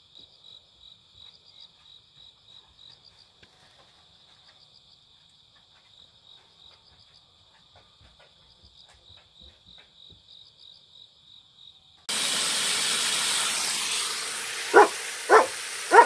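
Cricket chirping steadily, a high pulsing trill about three times a second. About twelve seconds in it cuts off and a loud hiss takes over, with a dog's short whines near the end.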